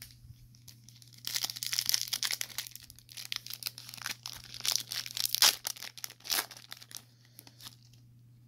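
Foil wrapper of a Panini Select WWE trading-card pack being torn open and crinkled by hand, a dense crackle of tearing and crumpling from about a second in that dies away near the end.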